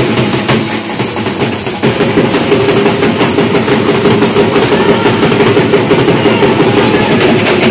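Dhol drumming, dense and continuous, easing off for about a second and picking up hard again about two seconds in.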